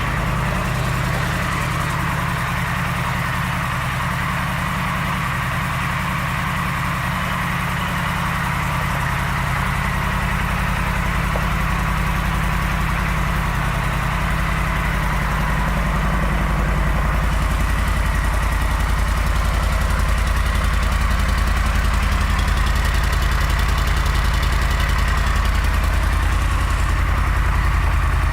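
Yamaha V-Star 1300's liquid-cooled V-twin idling steadily, growing slightly louder about halfway through.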